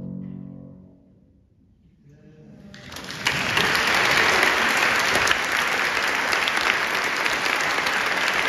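Grand piano sounding a last chord that rings out and fades over about a second and a half, then audience applause that builds from about two seconds in and carries on steadily and loud.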